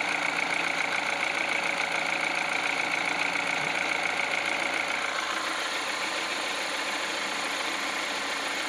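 Peugeot 308's 1.6 EP6 petrol engine idling cold, running steadily without the crackle that came from the water-pump belt tensioner before its bearing was greased. A high steady whine in the mix fades out about five seconds in.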